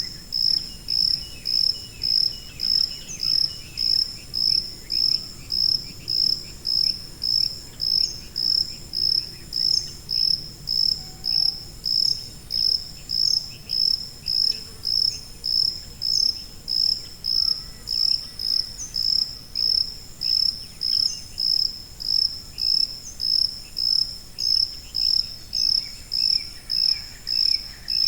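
A cricket chirping in a steady, even rhythm of high-pitched chirps, about three every two seconds, with fainter insect calls behind it.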